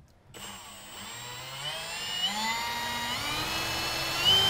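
Cordless drill driving a 3-inch hole saw into the underside of a diesel fuel tank. The motor whine speeds up and rises in pitch in steps, then jumps louder near the end.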